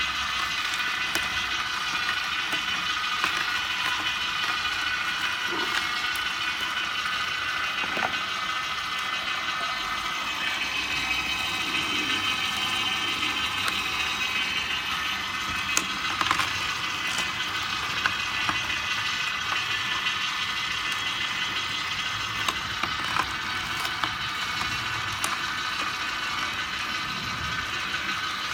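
Vertical slow (masticating) juicer running: its motor and gearbox give a steady whine. Scattered sharp cracks come through as the auger crushes the carrots and celery being fed into the chute.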